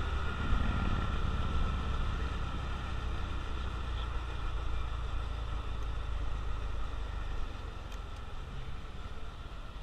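Honda CT125 Trail Hunter Cub's single-cylinder engine running while riding, gradually getting quieter through the stretch.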